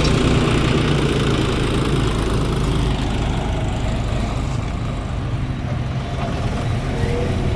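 Heavy diesel engine of a road milling machine running steadily.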